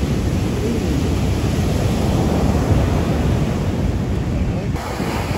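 Heavy surf breaking and washing up the beach, with wind rumbling on the microphone.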